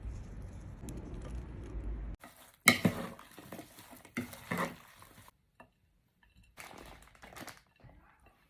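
Kitchen clatter: utensils and dishes knocking and scraping, with a sharp clink about two and a half seconds in and a second burst of clatter near the end. A low steady rumble in the first two seconds cuts off suddenly.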